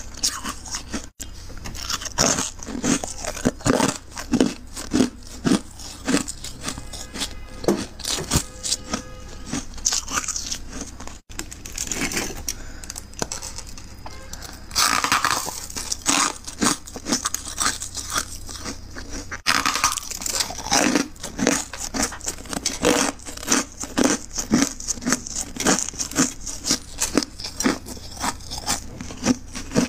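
Close-up crunching of freezer frost and refrozen ice: many sharp crunches in quick succession, broken by a few abrupt cuts.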